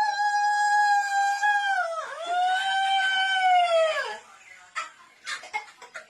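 A rooster's long drawn-out crow, held on one steady pitch for about two seconds. It is followed at once by a second long crow that sags and falls away at the end, about four seconds in. Faint ticking and clicking follow.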